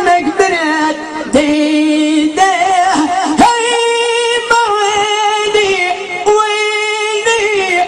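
A man singing solo in a high voice into a handheld microphone, holding long notes that waver and glide, with quick ornaments between short breaths.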